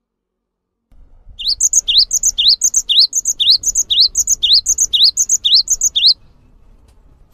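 Cinereous tit (gelatik batu) in full song: one quick rising phrase repeated about twice a second, around ten times over, starting just over a second in and breaking off about six seconds in.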